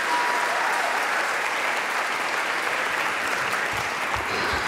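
Audience applauding steadily, as the last held note of the music dies away in the first half-second. A few low thumps come near the end.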